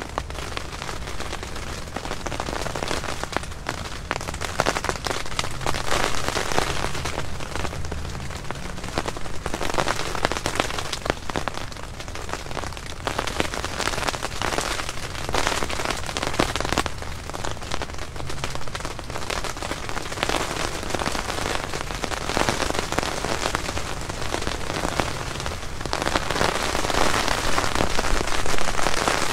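Rain falling on the nylon rain fly of a Hyke & Byke Zion 2P backpacking tent, heard from inside the sealed tent. It is a dense patter of drops that swells and eases, and is loudest near the end.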